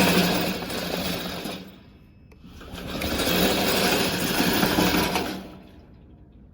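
Electric drive motors of a Vigorun VTC550-90 remote-control mower whining as the machine drives, in two runs of about three seconds each with a short drop between them. The gasoline cutting engine is not yet running.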